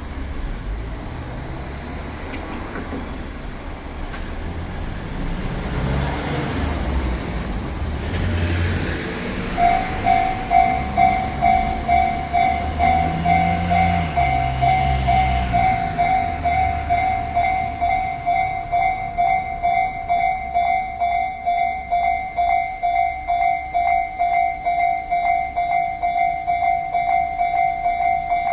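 A road vehicle rumbles past, then about ten seconds in a Japanese railway level crossing's electronic warning bell starts ringing: an even, repeated clang about twice a second that carries on steadily.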